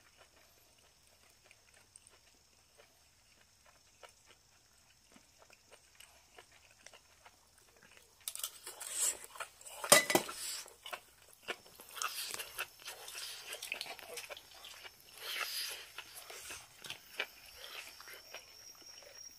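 Stainless steel tongs scraping and clicking against the wire grill net of a charcoal shichirin as charred scraps are picked off. It is faint at first; from about eight seconds in come louder bursts of scraping and crackling, with one sharp click about ten seconds in.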